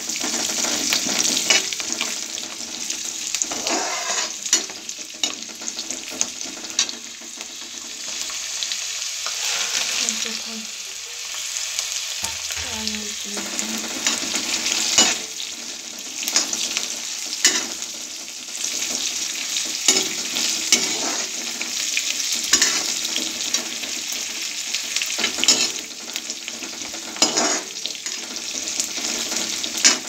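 Garlic cloves, whole spices and dried red chillies sizzling in hot mustard oil in a steel kadhai, roasting in the oil, with a steady frying hiss. A metal spoon scrapes and stirs against the pan over and over.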